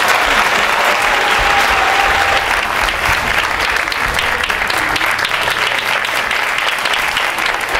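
Theatre audience applauding, many hands clapping steadily.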